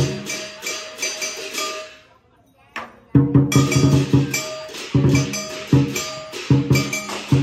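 Lion dance percussion, a big drum with clashing cymbals and gong, beating a rhythmic pattern. The playing breaks off for about a second about two seconds in, then starts again with heavy strokes.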